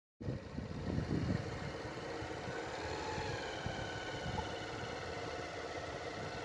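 A steady vehicle engine running while moving, with wind rumbling on the microphone. It starts suddenly just after the beginning.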